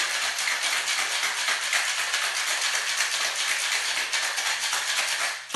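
Ice cubes rattling hard in a metal cocktail shaker shaken fast and steadily, the wet shake of a cocktail with ice before egg white is added. The rattling stops abruptly near the end.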